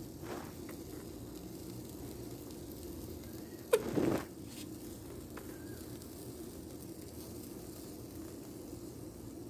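Squeeze bottle of mayonnaise sputtering as it is squeezed onto burger patties: a short spurt of air near the start and a louder, half-second sputter about four seconds in, over a low steady hum.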